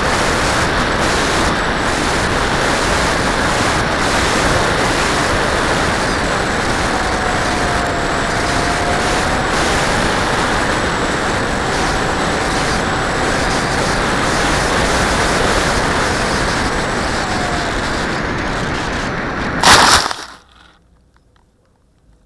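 Onboard audio of a Scorpion electric ducted-fan RC jet in flight: steady rushing wind noise with the fan's faint whine drifting up and down in pitch. Near the end a single loud impact as the plane hits the ground cuts the rushing off.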